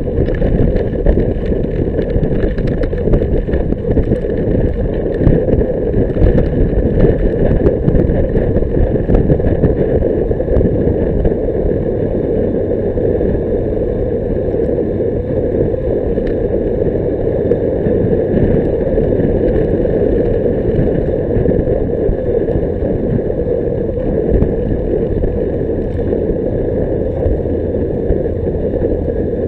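Wind buffeting and road noise on a bicycle-mounted camera riding at speed: a loud, steady low rumble, gustier for the first ten seconds or so, then steadier.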